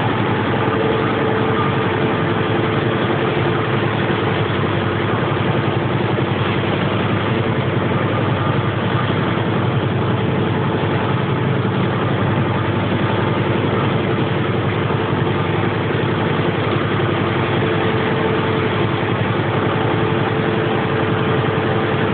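Small wooden motor boat's engine running steadily under way, a constant loud drone.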